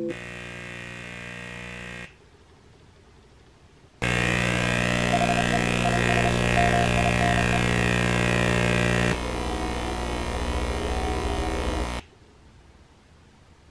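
Harsh electronic buzzing from a horror clip's soundtrack: a short buzz that cuts off after about two seconds, then after a pause a louder, harsher blast of buzzing noise lasting about eight seconds that shifts in tone partway through and stops abruptly.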